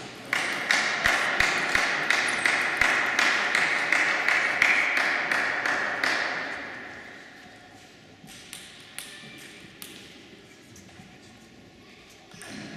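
Clapping from a small group, sharp claps about three a second, lasting about six seconds and then fading out. It is followed by a few scattered light taps.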